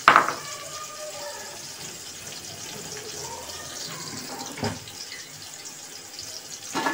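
Sliced onions frying in oil in an aluminium pot: a steady, gentle sizzle. A sharp knock sounds just after the start and a smaller one about two-thirds of the way through.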